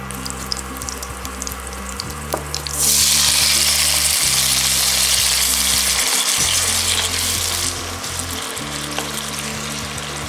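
Garlic cloves sizzling in hot olive oil in a pan; about three seconds in, chopped cherry tomatoes go into the oil and a much louder sizzle lasts about five seconds before settling back to a softer sizzle as they are stirred with a wooden spoon.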